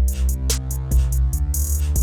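Background music with a steady electronic beat: deep bass notes, drum hits and hi-hats.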